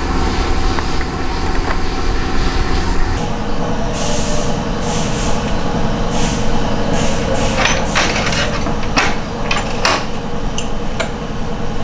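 A motorcycle engine running steadily. About three seconds in the sound changes, and sharp clicks and scrapes are heard over the engine.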